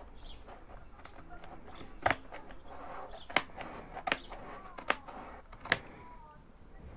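Scissors cutting thin cardboard: five sharp snips a little under a second apart, with faint rustling of the card between them.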